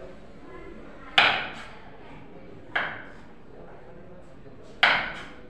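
Kitchen knife chopping a carrot on a wooden cutting board: three sharp knocks of the blade on the board, about one and a half to two seconds apart.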